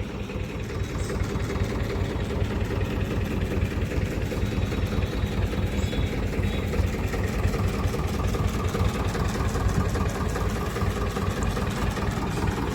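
Swaraj tractor's diesel engine idling steadily, with a rapid, even beat.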